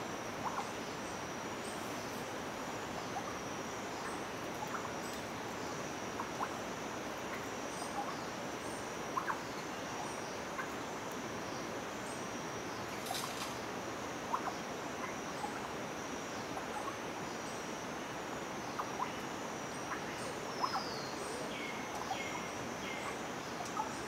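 Tropical forest ambience: a steady high insect drone with scattered faint ticks. Near the end come a short falling whistle and three brief high notes.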